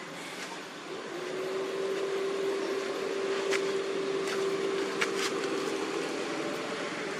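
A steady mechanical hum, like a motor running, that comes in about a second in and holds at one pitch, with a few faint sharp clicks in the middle.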